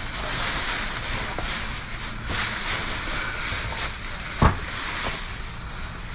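Plastic trash bags rustling and crinkling as hands tear into them and rummage through packaged toys, with one sharp knock about four and a half seconds in.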